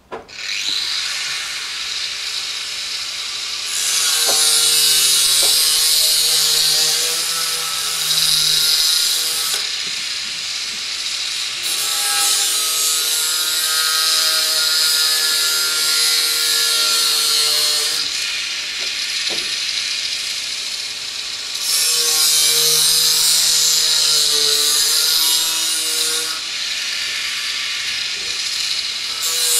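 Handheld angle grinder running and cutting metal sheet, starting abruptly and growing louder in several stretches of a few seconds as the disc bites into the metal.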